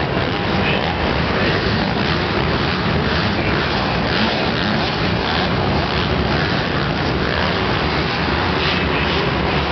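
Several motocross bike engines running hard and revving as the bikes race around the track, blending into one steady, loud din.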